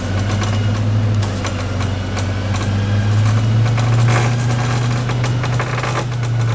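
A classic Range Rover's electric winch and engine running in a steady low drone as the vehicle, stuck deep in mud, is winched forward, with scattered clicks over the top.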